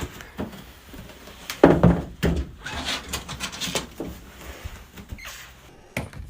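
A few scattered knocks and thuds, the loudest about a second and a half in.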